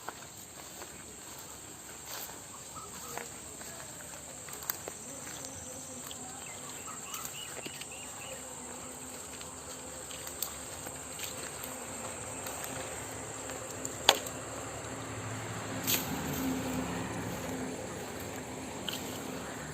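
Insects, crickets or flies, buzzing steadily with a constant high-pitched drone, with scattered faint clicks and one sharp click about two-thirds of the way through. A low hum rises underneath near the end.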